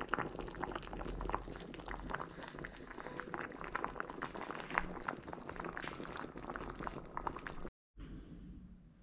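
A pot of beef stew with pak choy bubbling at a simmer, a dense crackle of small popping bubbles. It cuts off abruptly near the end, leaving only faint room sound.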